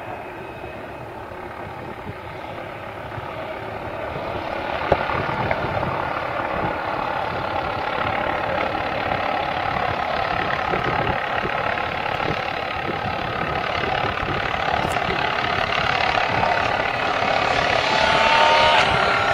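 Rally car engine approaching from a distance along the stage. It grows steadily louder, and near the end the revs rise and fall as the car nears.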